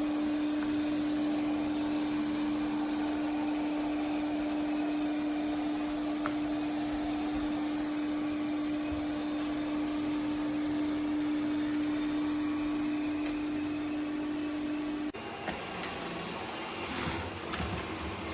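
ECOVACS DEEBOT T50 robot vacuum running: a steady motor hum with one constant low tone over a wide rushing noise. About 15 seconds in it cuts off abruptly to a quieter, uneven noise with a few faint clicks.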